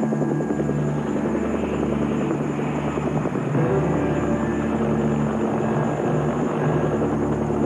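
AH-64 Apache helicopters taxiing on the ground with their rotors turning: a steady rotor and turbine engine sound.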